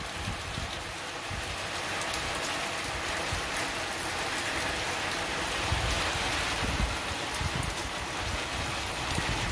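Heavy rain pouring down steadily in a dense hiss, with water running off the roof and splashing. Low gusts of wind buffet the microphone briefly a little past the middle.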